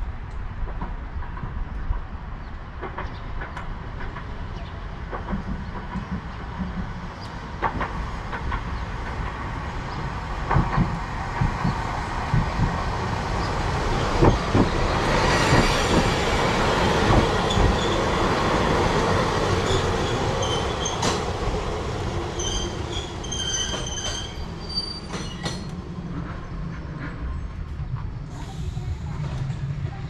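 Chikuho Electric Railway train running through on the track, wheels clacking over rail joints and growing louder toward the middle. Short high-pitched squeals from the wheels come near the end.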